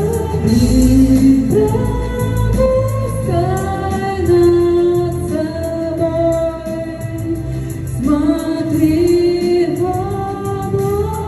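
Pop song backing track with a steady beat, and a female voice singing long held notes that slide from one pitch to the next, with no clear words.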